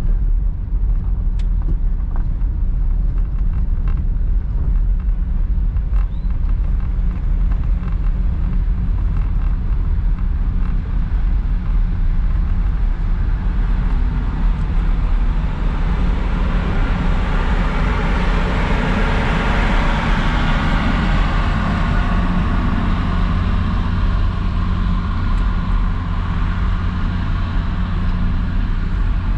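Steady low engine hum, with a broad rushing noise that swells and fades over several seconds midway through.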